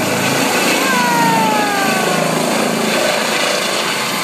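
Hospital helicopter's rotor and turbine running loud and steady as it lifts off and climbs overhead. A tone glides downward about a second in.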